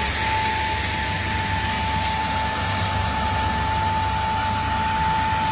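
Road sweeper truck at work, its suction and brushes running: a steady rushing noise over a low engine rumble, with a constant high whine.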